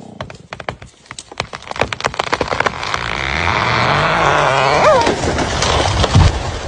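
A felled tree's hinge wood giving way: a quick series of sharp cracks and snaps, then a rising rush as the tree goes over, with a short falling squeal near five seconds and a heavy low thud about six seconds in as it lands.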